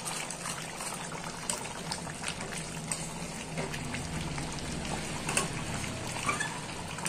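Chicken curry gravy boiling steadily in a wide metal pan, a continuous bubbling, while a metal ladle stirs it, clicking against the pan a few times.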